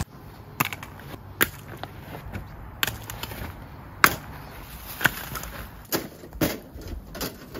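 Split firewood being handled on gravel: about eight sharp, irregular wooden knocks and clacks as the pieces strike one another.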